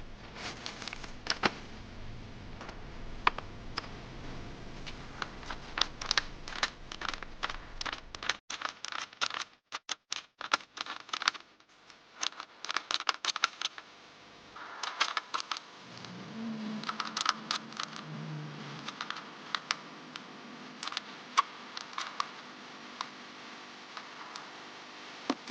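Irregular sharp clicks, taps and scrapes of hand tools and metal parts being handled during clutch and transmission work, with a couple of abrupt cuts in the sound.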